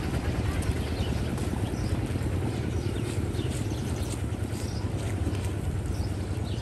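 A small engine running steadily with a low drone, and faint scattered clicks above it.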